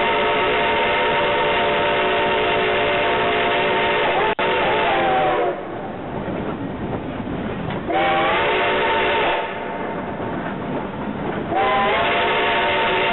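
Shay steam locomotive's whistle blowing for a road crossing: a long blast ends about five seconds in, a short blast follows, then another long blast begins near the end, each sliding up in pitch as it opens. Between blasts, the train runs along the track.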